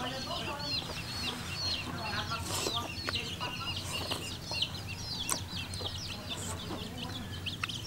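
Chickens clucking and cheeping, short high calls coming several times a second.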